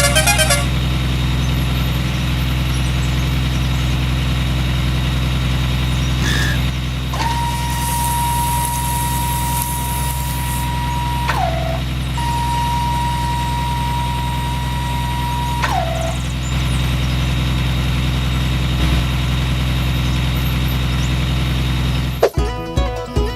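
A heavy vehicle engine idling steadily, like a tractor or truck. Two long steady tones sound over it in the middle, each ending with a quick drop in pitch. Music with a plucked, rhythmic beat cuts in near the end.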